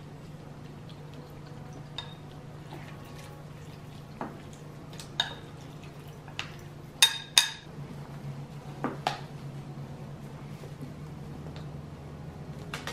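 Wooden chopsticks tossing greens in a glass food container, with scattered light clicks and taps against the glass and two sharp clacks about seven seconds in. A steady low hum runs underneath.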